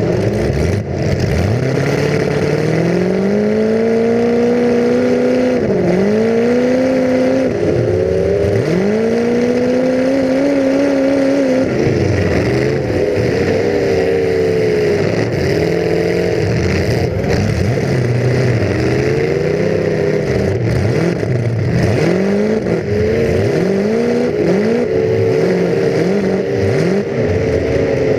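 Full-size demolition derby car's engine, heard from on board, revving up and falling back over and over as the car accelerates, brakes and changes direction, with a few short knocks.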